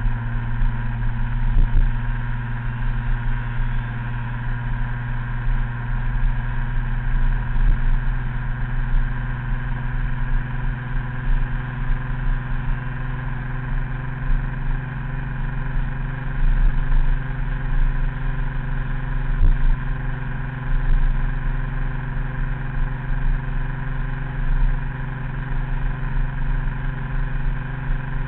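Small scooter engine running at a steady cruising speed, its pitch holding constant, with an uneven low wind rumble on the microphone.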